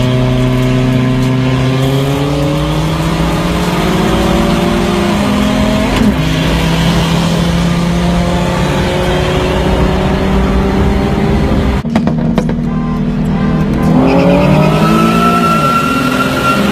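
Car engine accelerating hard, heard from inside the cabin: the revs climb, fall at an upshift about five seconds in, and climb again. After a cut about twelve seconds in, a second pull begins, with revs rising and another upshift near the end.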